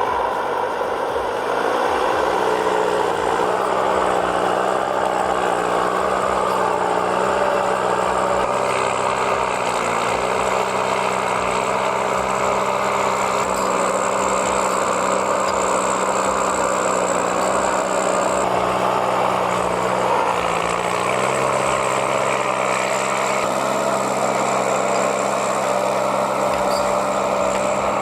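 Engine of a heavy machine running steadily, its pitch dipping briefly about ten seconds in and again about twenty seconds in.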